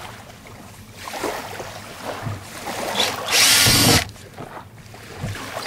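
Battery-operated drill with a 13/64-inch bit boring a hole through the plastic deck of a sit-on-top kayak. It runs in one short burst of under a second, about three seconds in, after quieter handling noise.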